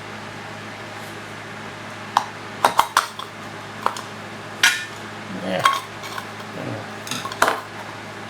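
Small metal tools clinking and tapping on a workbench: a string of sharp clicks over about five seconds, over a steady low hum.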